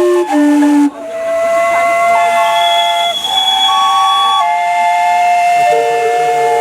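Steam whistles blown one after another as a wavering tune of held notes. Two short low notes fill the first second; after a brief dip come longer, higher notes that change pitch every second or so, over a steady hiss of steam.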